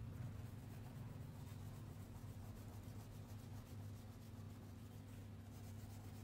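Wax crayon rubbing across paper in faint, scratchy colouring strokes, over a steady low hum.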